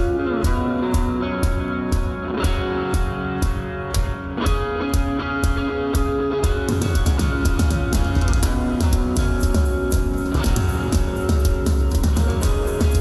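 Rock band playing live: electric guitars, bass and drum kit, with no singing. About six and a half seconds in, the drums get busier with more cymbal and the bass grows heavier.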